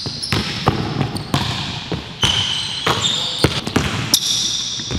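Basketballs bouncing on a hardwood gym floor, a string of sharp thuds, mixed with high squeaks of sneakers on the court.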